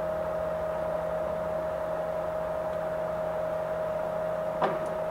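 Ganesh GT-4480 heavy-duty engine lathe running under power while threading, with the lead screw turning and the half nut engaged: a steady whine over a low hum.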